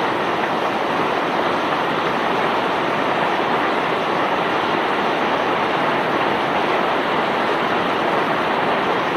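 Steady rushing noise of bulk cargo pouring off a self-unloading barge's discharge conveyor, even and unbroken.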